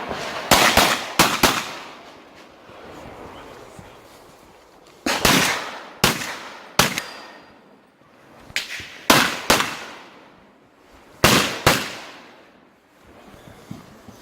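Open-division STI 2011 race pistol firing about ten sharp shots, several in quick pairs, with pauses of one to two seconds between groups.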